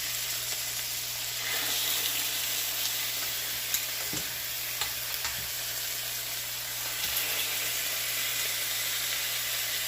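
Skin-on chicken thighs sizzling in a hot frying pan: a steady hiss with a few sharp pops scattered through.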